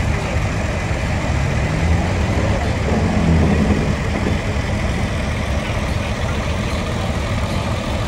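Big-rig diesel engine idling with a steady low rumble.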